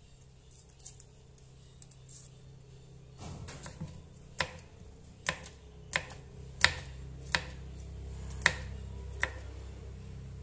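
Kitchen knife chopping garlic cloves on a round wooden chopping board: about seven sharp knocks of the blade on the wood, a little under a second apart, starting about four seconds in.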